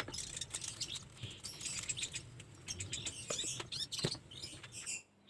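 An aluminium pot lid clinks as it is set on the pot, then small birds chirp on and off, mixed with scattered light ticks.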